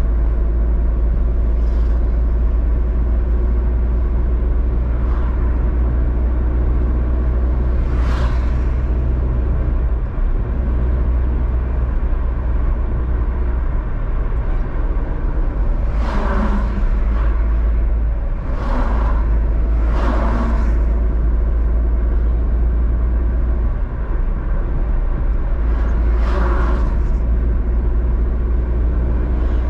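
Steady low road noise of a car driving along a highway, with about five brief whooshes of other vehicles going by: one about eight seconds in, three close together in the middle, and one near the end.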